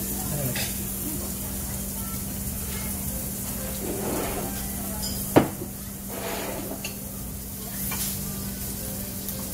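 Udon noodles being slurped from a bowl of spicy ramen, with a single sharp click of tableware a little past halfway. Under it runs a steady background hum and hiss.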